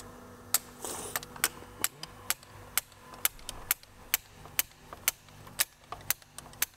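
Sharp metallic clicks, about two a second, from a hand tool being worked on a glow plug that is seized in a diesel engine's cylinder head.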